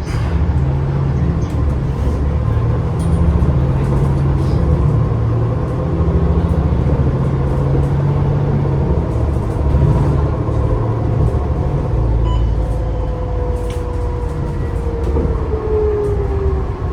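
MAN ND323F double-decker bus with a ZF automatic gearbox, heard from on board: a steady low engine drone with a faint gear whine from the hub-reduction axles. Near the end the whine slides down in pitch as the bus slows. Light rattles click now and then.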